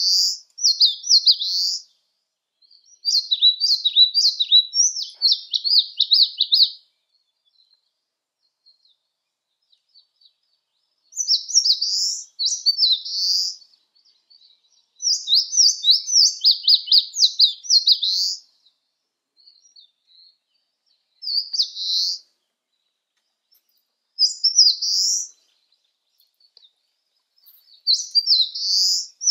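Eastern crowned warbler singing: about seven bouts of its quick, high, repeated song phrase, each one to three seconds long with pauses of a few seconds between.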